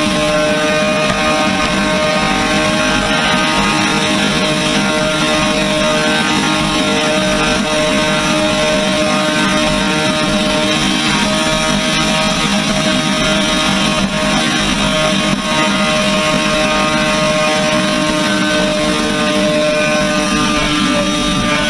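Honda CBR1100XX's inline-four engine running at steady high revs, a constant unchanging drone, under a rush of wind noise.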